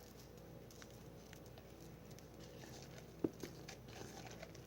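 Faint sticky clicks and squishes of soapy homemade glue slime being kneaded and pulled by hand, with one sharper click a little over three seconds in.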